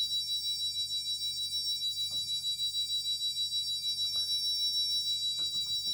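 Steady high-pitched electronic tone from the Securit 700L alarm keypad's sounder during a walk test, over a low steady hum, with a few faint clicks.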